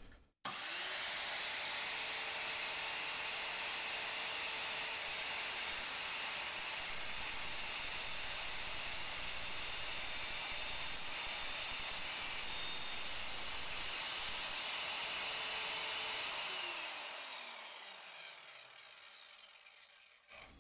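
Evolution R185SMS 185 mm multi-material sliding mitre saw starting about half a second in and running at a steady pitch as its carbide-tipped blade is fed slowly through a piece of metal. Near the end the trigger is released and the motor winds down, its pitch falling steadily.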